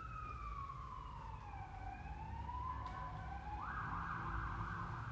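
A siren-like tone gliding slowly down in pitch, then rising a little, over a low rumble. About three and a half seconds in, a steady hissing tone joins at about the same pitch.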